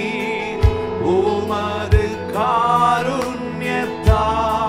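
A Tamil Christian worship song: a voice sings long, drawn-out notes over sustained instrumental accompaniment, with three low drum thumps.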